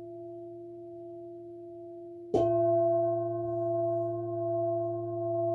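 A metal singing bowl struck with a mallet a little over two seconds in, ringing on with several steady tones that slowly swell and fade. Before the strike, the ring of an earlier bowl carries on.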